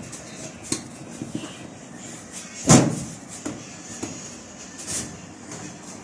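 Sheet-metal back cover of a washing machine knocking and rattling against the metal cabinet as it is fitted into place. There is one loud knock a little under three seconds in, with several lighter taps and clicks around it.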